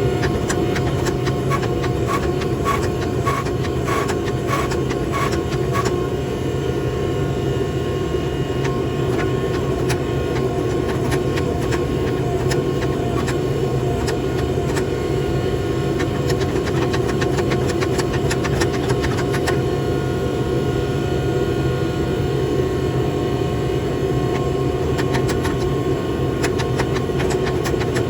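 Steady drone of a forging press's hydraulic pump motor running. Over it, in the first six seconds, comes a run of light, evenly spaced metallic taps that ring briefly.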